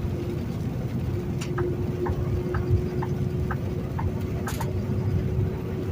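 Turn-signal indicator in a semi truck's cab ticking evenly about twice a second, with an alternating tick-tock, over the steady low drone of the engine and road noise.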